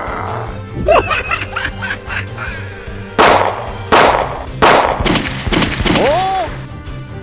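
Background music with cartoon-style sound effects: three sudden loud noisy bursts about three, four and four and a half seconds in, and short gliding comic squeals, one about a second in and one near the end.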